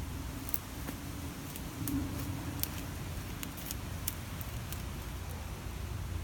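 Twigs and dry woodland debris crackling and snapping in scattered sharp clicks as someone pushes into undergrowth, over a steady low rumble.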